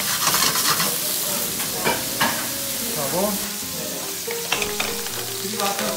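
Shrimp, tomato and onion sizzling as they are stir-fried in a frying pan, with a utensil scraping and knocking against the pan, the sharpest knocks about two seconds in.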